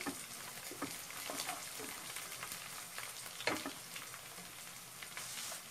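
Chopped onions and slit green chillies sizzling in hot oil in a non-stick kadhai, with a wooden spatula stirring and scraping them at the start. Small crackles and clicks run through the steady sizzle, with one sharper click about three and a half seconds in.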